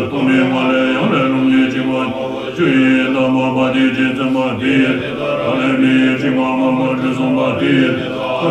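A group of Tibetan Buddhist monks chanting together in unison, holding one steady pitch in long phrases with brief breaks every two or three seconds.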